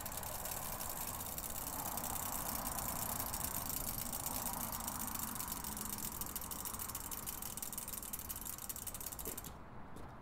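Bicycles rolling on asphalt, with the rapid ticking of freewheel hubs as the riders coast. The hiss drops away abruptly near the end.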